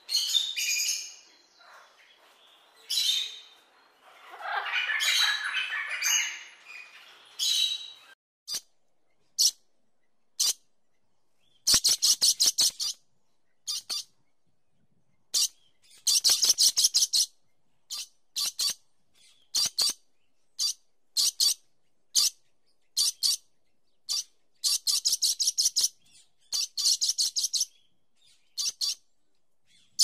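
Parrot calls: a few harsh squawks over the first several seconds, then short runs of rapid high chirps, each run about a second long, with single chirps in between.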